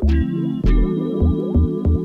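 Background music: an electronic track with a steady beat and a bass line.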